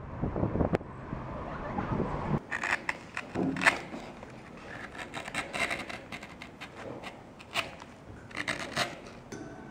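Low rumble of a moving car's cabin for about two seconds. It is followed by a woodcut carving gouge cutting into a wooden block: irregular short scraping strokes of the blade through the wood.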